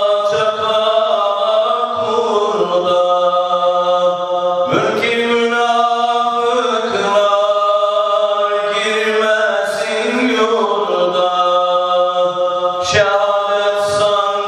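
A solo male voice chanting Islamic devotional recitation unaccompanied, sung into a handheld microphone. It moves in long, held, ornamented lines, with brief breaks for breath about five seconds in and again near the end.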